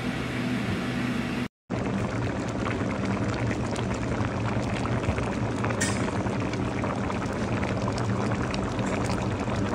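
A large pot of rice, chicken and broth boiling hard, a steady bubbling hiss with a low hum underneath. The sound cuts out for a moment about one and a half seconds in.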